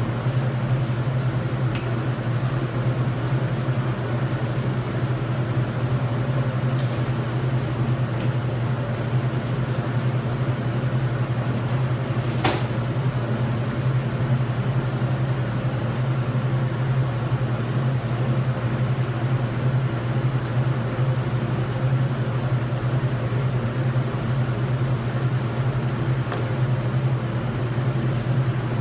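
Steady low machine hum that does not change, with a single sharp click about twelve seconds in.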